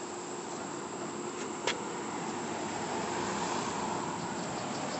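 Road traffic ambience: a passing vehicle's noise growing gradually louder, over a faint steady hum, with one sharp click a little under two seconds in.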